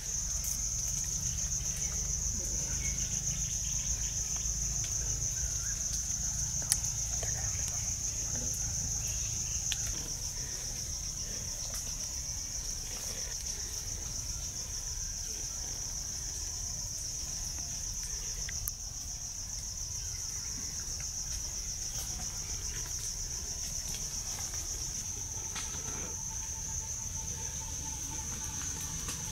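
Steady insect chorus: one shrill, unbroken high buzz, with a low rumble underneath.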